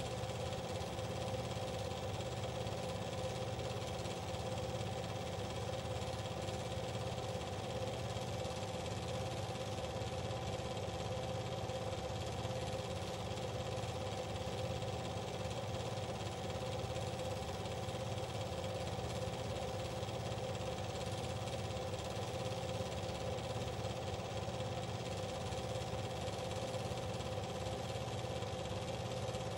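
A motor running steadily with a constant hum and a fast, even low pulsing, unchanged throughout.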